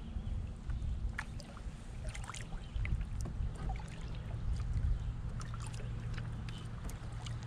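Small water splashes and drips around a canoe on the water, many short irregular ticks over a steady low rumble.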